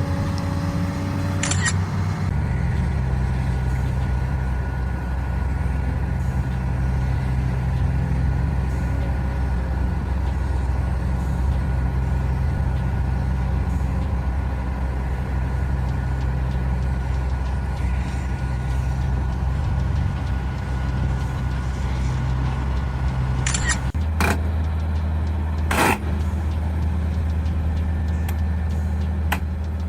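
Heavy diesel engine of earthmoving machinery running steadily, its note shifting about two seconds in and again near the end, with a few short sharp hisses.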